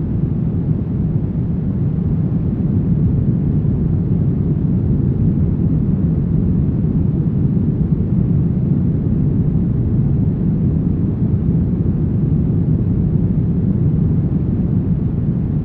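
Brown noise: a steady, deep rumbling hiss, strongest in the bass and thinning out toward the treble, with no changes or events.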